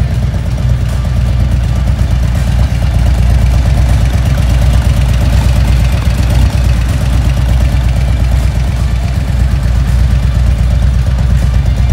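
Harley-Davidson CVO Street Glide's Screamin' Eagle 131 Stage IV V-twin idling steadily with an even pulse, a little louder from about three seconds in.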